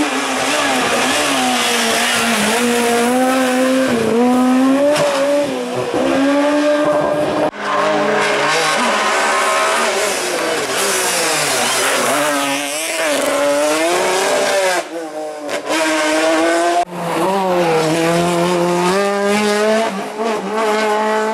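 Racing car engines at full throttle on a hill climb, revving up and dropping again as the cars change gear and brake for bends. Several passes follow one another, the sound cutting off abruptly twice between them.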